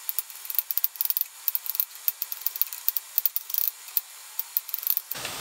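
Kitchen knife finely chopping garlic cloves on a wooden cutting board: a quick, irregular run of sharp taps of the blade on the wood.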